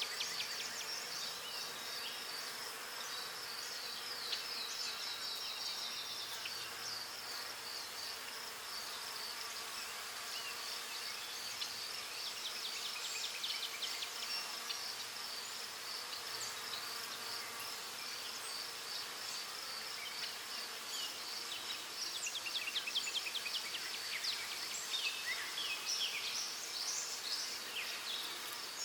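Insects chirping outdoors: a steady, high-pitched, rapidly pulsing trill, joined now and then by short runs of fast ticking chirps.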